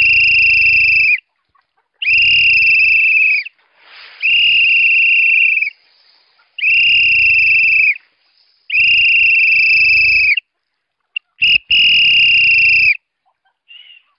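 A man whistling to call free-range chickens to their feed: six long, steady, high notes of even pitch, each a little over a second and spaced about two seconds apart.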